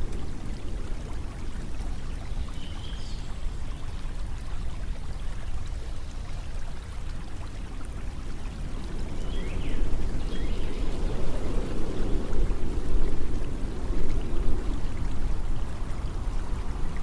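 Steady flowing water in a continuous low rush that swells for a few seconds in the second half. A few faint, short, high chirps sound about three seconds in and again around ten seconds.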